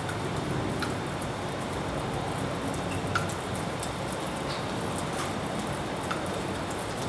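Stirring rod rapidly stirring clear PVA glue with borax solution in a small plastic beaker: a steady, even noise with scattered light clicks of the rod against the beaker, as the glue cross-links and thickens into slime.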